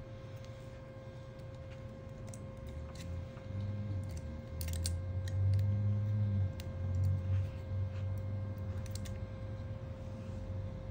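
Small, scattered clicks and taps of a plastic spudger prying at a Google Pixel 3's motherboard and internal parts. Beneath them is a low handling rumble that swells in the middle and is the loudest sound.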